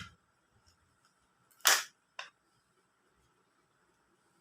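Power bank casing being pried apart: one loud sharp snap about two seconds in, then a smaller click half a second later, as the case's clips let go.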